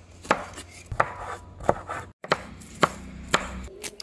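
Kitchen knife slicing a yellow bell pepper into strips on a wooden chopping board: about five sharp knocks of the blade striking the board, with a brief break about halfway.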